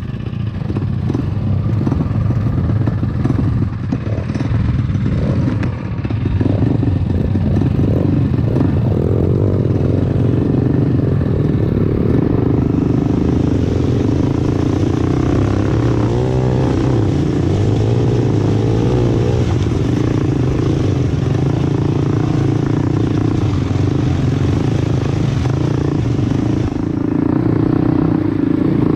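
Trailmaster MB200 mini bike's built-up Predator 212 Hemi single-cylinder four-stroke engine running as the bike is ridden over a rough dirt trail, engine speed rising and falling in the first half, then holding steadier.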